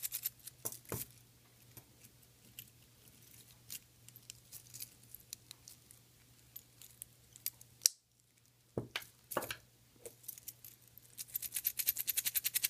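Cheap stainless steel link watch band rattling and clicking as the watch is shaken. A fast run of clicks comes at the start, scattered single clicks follow, and a steady fast rattle of about ten clicks a second starts near the end. The loose, tinny clatter is the sound of a cheaply made band.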